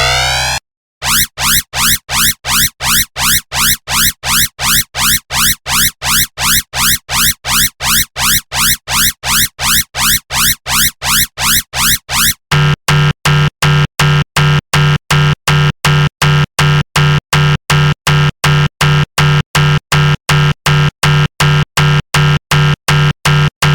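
Synthesized sci-fi alarm sound effects. A fast pulsing alarm of short rising chirps, about three to four a second, changes about halfway through to a different alarm of steady-pitched electronic beeps pulsing at a similar rate.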